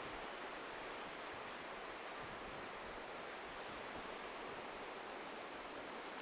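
Steady rushing of strong wind in a snowstorm, an even hiss with no gusts or thumps.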